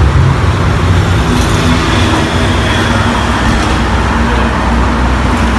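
Steady motor-vehicle rumble with no distinct knocks or impacts.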